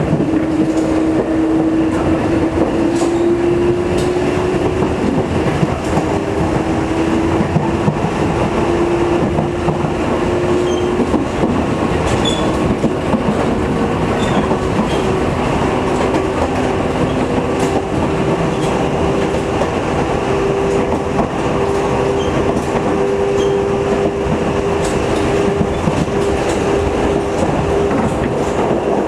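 Sangi Line electric train running, heard from inside the carriage: a steady rumble with a motor whine that slowly rises in pitch as the train gathers speed, and the wheels clicking now and then over rail joints.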